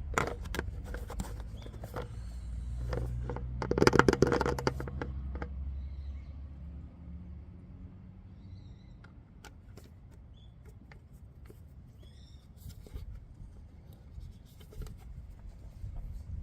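An engine running with a low, steady hum and loud clattering bursts near the start and about four seconds in. The hum dies away about seven seconds in, leaving faint scattered clicks.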